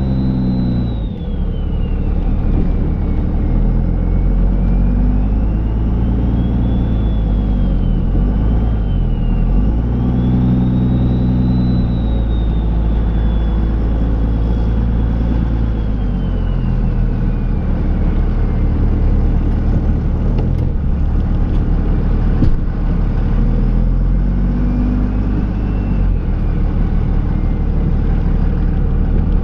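Cummins turbo-diesel inline-six of a Dodge Ram pickup revving up and easing off several times while plowing snow. A high turbo whistle rises and falls with the engine, and there is a single sharp knock about three-quarters of the way through.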